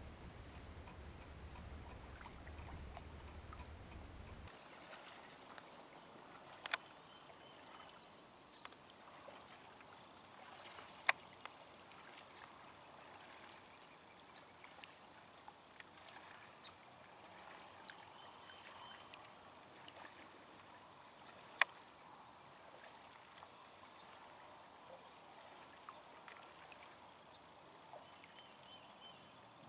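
Faint water sounds of a kayak paddle dipping and dripping, with a few sharp clicks or knocks now and then. A low rumble runs for the first few seconds.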